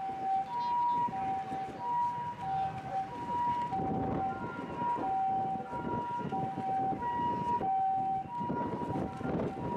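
Japanese ambulance's electronic two-tone siren sounding a steady 'pee-paw': a higher and a lower tone taking turns, each held a little over half a second, over a rumble of wind and engine noise.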